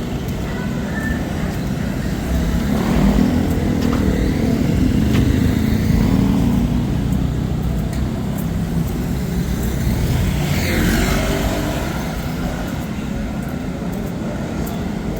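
Street traffic: car and motorcycle engines running by in a steady rumble, with one vehicle passing with a falling sweep of sound about ten seconds in.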